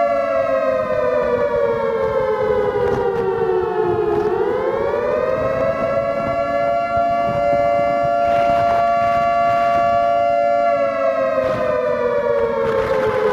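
Civil defense siren wailing with two close tones sounding together. The pitch slides down, swings back up about four seconds in, holds steady for several seconds, then slides down again near the end.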